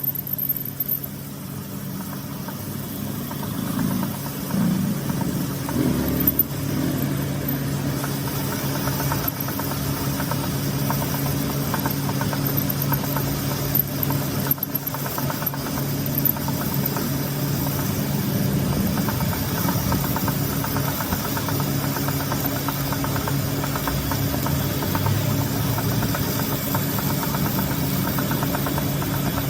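A workshop machine's motor running steadily with a constant hum.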